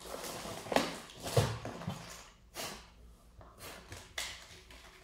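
Several short rustles of packaging with a few light knocks, as products are rummaged through and lifted out of a delivery box.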